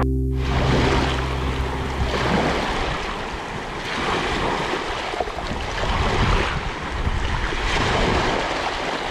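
Sea waves washing ashore, a steady rush of surf that swells and eases every couple of seconds. Low sustained music tones fade out in the first couple of seconds.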